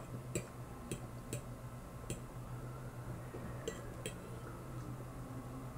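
Eating sounds: a metal fork clicking against a plate and chewing, a few faint scattered clicks over a steady low hum.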